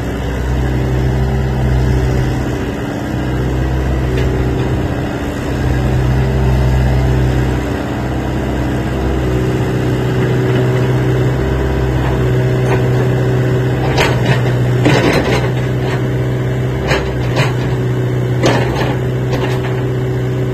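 Hitachi ZAXIS 70 excavator's diesel engine running steadily, its low note swelling and easing every few seconds. There are a few short knocks in the second half.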